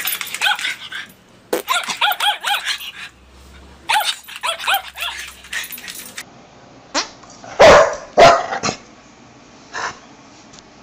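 Dog barking and yipping in quick runs of short, high-pitched calls. Later come two much louder barks about half a second apart, then one more, weaker.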